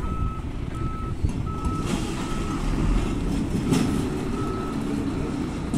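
Vehicle reversing alarm beeping at an even pace, about three beeps every two seconds, over a low engine rumble from the yard's forklift and lorry, with one sharp clank about two-thirds of the way through.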